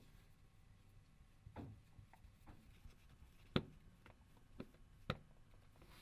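Faint, scattered clicks and taps of a small screwdriver and tiny screws on a phone's chassis while its Torx Plus screws are taken out, five in all, the loudest about three and a half seconds in.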